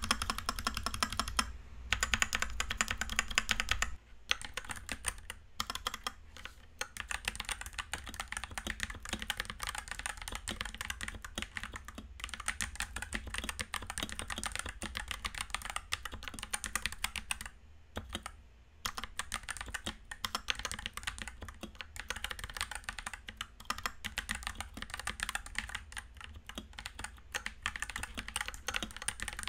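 Fast typing on a Rakk Pirah 65% wireless mechanical keyboard with stock, unlubed Rakk Kalaw tactile switches and pre-lubed stabilizers: a dense, continuous run of key clacks, with brief pauses about 4 and 18 seconds in.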